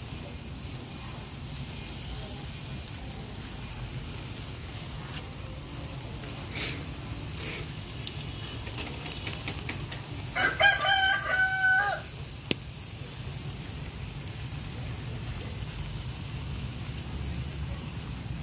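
A rooster crows once, about ten seconds in, for under two seconds. It sounds over a steady low rumble with a few faint clicks.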